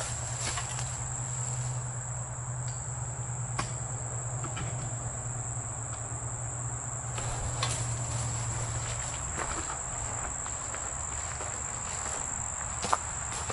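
Insects trilling with a steady, continuous high-pitched tone, along with a low hum that fades out about nine seconds in. A few sharp clicks break through, the loudest near the end.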